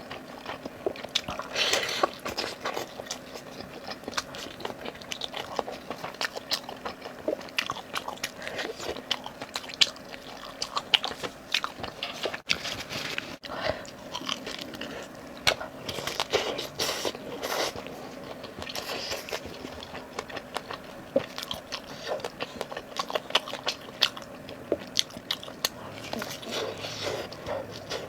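Close-miked eating: repeated wet, crunchy bites and chewing, with irregular clicks and smacks.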